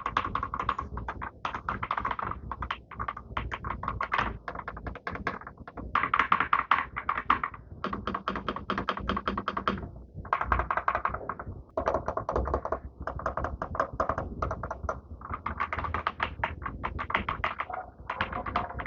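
Typing on an Akko 5075B Plus mechanical keyboard with Akko Crystal switches and PBT double-shot keycaps: fast runs of key clicks, broken by several short pauses.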